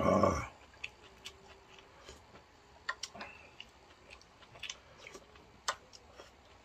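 A person eating rice soaked in spicy ramen broth close to the microphone: a short loud slurp at the start, then soft chewing with scattered small clicks.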